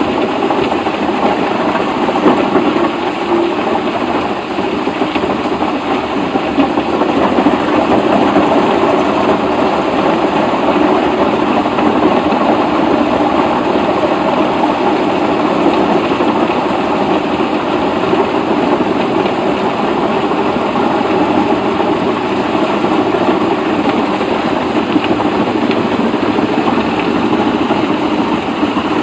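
An engine running steadily and loudly, with no pauses or changes in speed.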